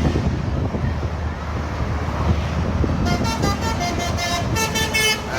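Traffic noise from a toll road. About three seconds in, a bus's Basuri telolet horn plays a quick tune of short, stepped musical tones for about two seconds.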